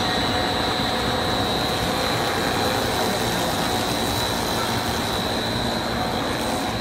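Dog food extrusion machine running: a steady, dense mechanical drone with a constant high-pitched whine over it.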